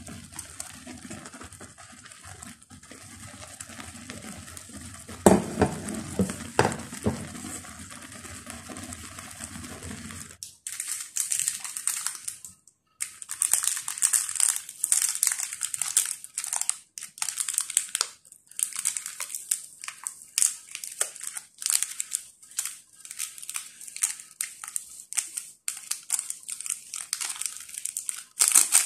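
Foil instant-noodle seasoning sachets crinkling and being torn open and squeezed out, a rapid dense crackle from about ten seconds in. Before that, a steady noise from the simmering noodle pot with a few knocks.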